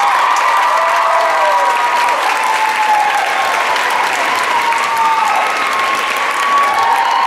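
Audience applauding and cheering, with long high whoops and calls carrying over the clapping.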